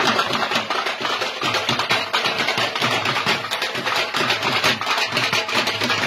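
Dhol drums beaten with sticks in a rapid, steady rhythm.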